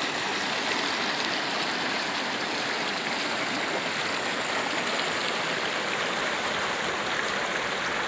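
River rapids: fast current rushing steadily over and around rocks.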